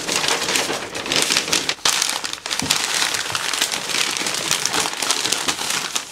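Stiff butcher paper crinkling and rustling as it is folded by hand into a parcel, a continuous run of fine crackles.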